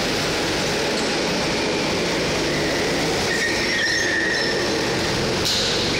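Several go-kart engines running as karts drive around an indoor track hall, a steady, dense mechanical din, with a brief high squeal about three and a half seconds in.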